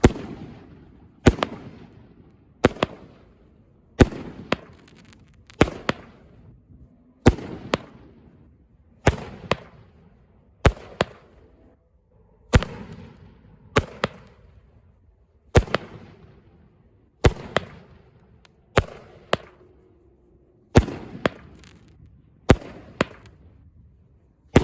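25-shot 200-gram cake firework firing shot after shot, a sharp bang about every one and a half seconds, some in quick pairs, each trailing off in an echoing tail. The loud reports are the salutes of its colour-and-thunder rotation.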